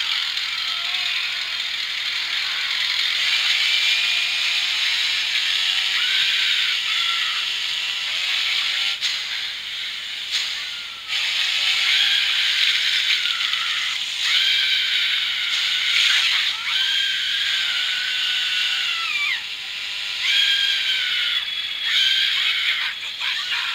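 Horror film soundtrack heard through a TV speaker: high, wavering tones that glide up and down, with a few brief dips.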